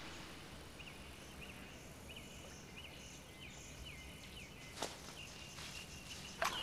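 Faint outdoor ambience with a small creature giving short, high chirps over and over, roughly two a second. A single click comes about five seconds in.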